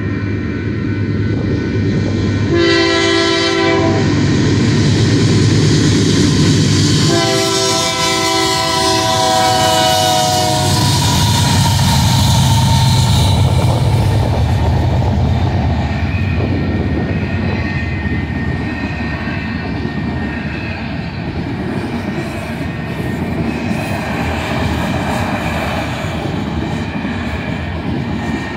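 Diesel freight locomotive's air horn sounding two blasts at a grade crossing, a short one and then a longer one that falls in pitch at its end as the locomotive passes. Then the steady rumble and clickety-clack of a fast freight train's autorack cars rolling by.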